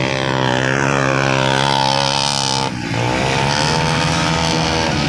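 Motorcycle engine running under steady throttle, briefly dropping off about two and a half seconds in and then pulling again.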